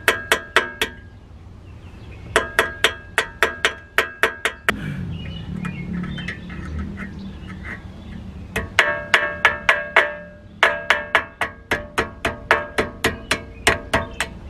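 Hammer tapping a brake caliper's pad retaining pin with sharp, ringing metal clinks, knocking it back and forth to work it loose and out. The taps come in runs, quickest near the end at about four a second, with a pause of a few seconds in the middle.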